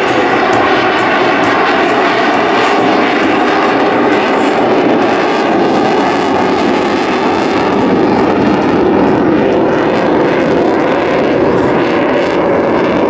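CF-18 Hornet fighter jet flying past with its twin General Electric F404 engines in full afterburner, loud and steady.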